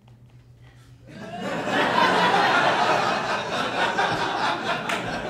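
A live audience laughing, starting about a second in and swelling to a loud, sustained laugh.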